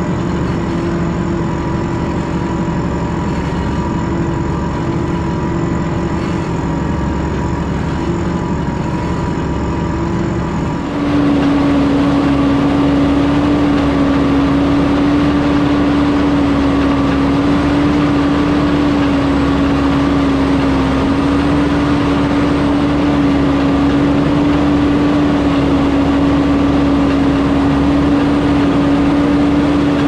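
Valtra T202 tractor's six-cylinder diesel engine running steadily under load while pulling a seven-furrow reversible plough, heard up close. About eleven seconds in the sound cuts abruptly to a slightly louder, slightly lower steady engine note.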